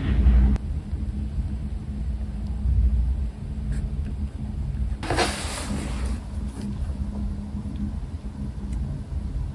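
Journaling stickers and tape being handled over a steady low rumble. About five seconds in there is one louder rasping sound of about a second, like a strip of tape or a sticker being peeled off its backing.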